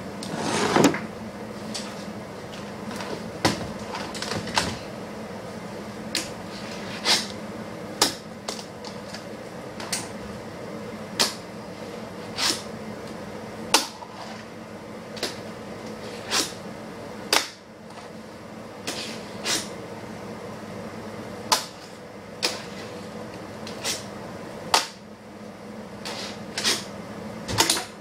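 Fingerboard tricks on a hard floor: sharp clacks of the small deck popping and landing, at roughly one a second with short gaps. A steady low hum runs underneath.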